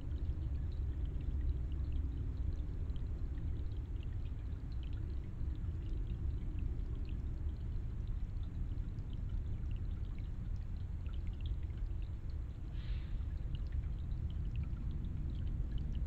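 Small forest stream trickling over rocks into a shallow pool: a steady low rush of water with scattered small ticks of dripping.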